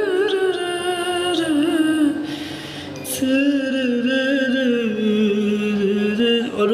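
A man singing dangdut-style, with long held notes that waver and turn in ornaments. There are two long phrases, with a short breath about two seconds in.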